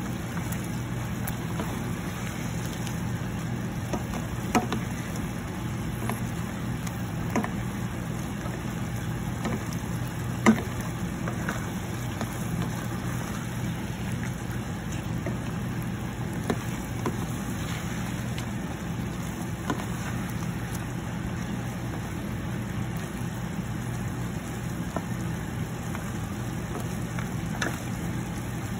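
Whole shrimp sizzling in sauce in a frying pan, over a steady low hum, with a handful of sharp clicks as a spatula knocks against the pan, the loudest about ten seconds in.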